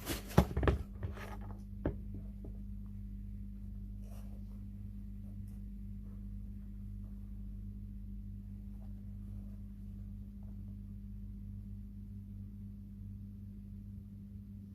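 A few brief handling knocks and clicks in the first two seconds, then a steady low hum of room tone for the rest.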